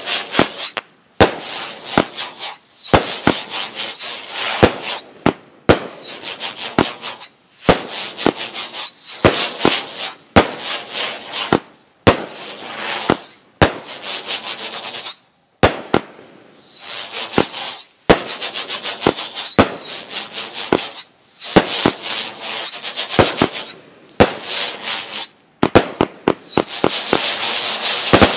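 Brothers Pyrotechnics 500-gram consumer firework cake firing its finale: a steady run of shots about a second apart, each a sharp bang followed by a second or so of hissing crackle. A quick cluster of cracks comes near the end.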